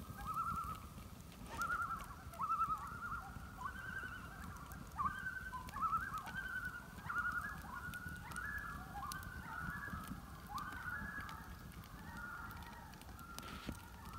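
A flock of geese honking: many short calls overlapping almost without a break.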